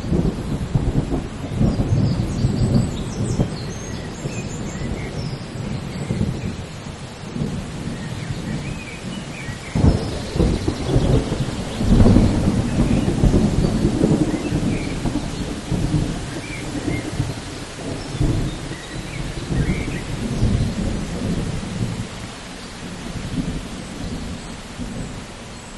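Thunderstorm: low rolling thunder rumbling over steady rain, with the heaviest peals about ten and twelve seconds in, dying away near the end.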